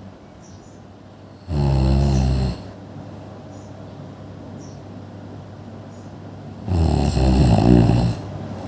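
A person snoring loudly: two long, rattling snores about five seconds apart, with quieter breathing between them.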